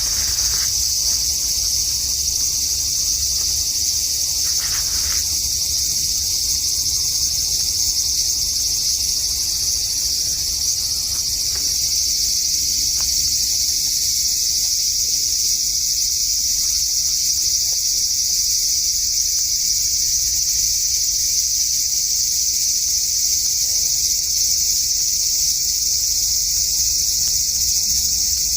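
Large brown cicada (aburazemi) singing one continuous, unbroken high buzz.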